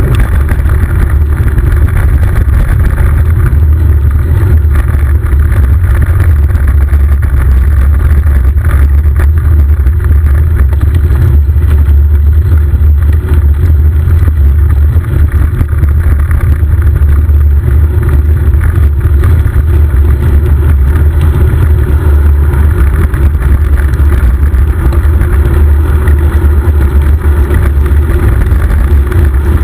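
Wind buffeting the microphone of a camera riding along on a moving bicycle: a loud, steady, low rumble with a fainter hiss of air and road noise above it.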